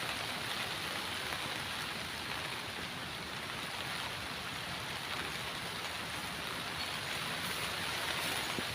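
Steady rain falling, an even hiss of water throughout.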